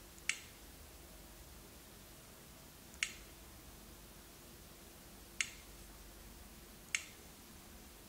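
Four short, sharp clicks, each as a stylus touches a menu item on the FT800 touchscreen display.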